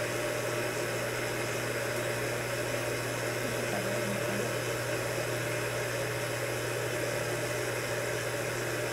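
A steady mechanical hum with a constant low tone under an even hiss, unchanging throughout, as from an equipment cooling fan or room ventilation.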